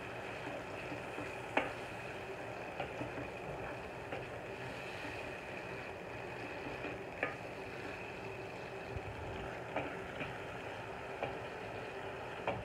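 Prawns frying in an oily onion-and-spice masala in a non-stick wok: a steady soft sizzle as they are stirred with a wooden spoon, with a few sharp taps of the spoon against the pan.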